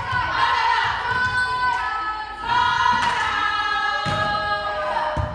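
A group of high voices singing together, holding long notes that shift pitch about halfway through, with two thuds near the end.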